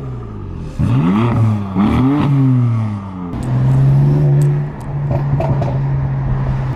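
Car engine revving: the revs climb sharply twice and fall away, then hold a steady drone through the second half.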